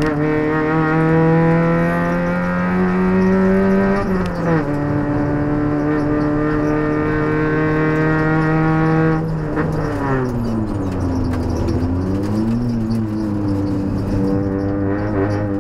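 Putra 1800cc race car's four-cylinder engine heard from inside the cabin under hard acceleration: the pitch climbs steadily, drops at a gear change about four seconds in, and climbs again. About nine seconds in it falls away as the throttle is lifted, swoops down and back up, then runs at a steadier pitch.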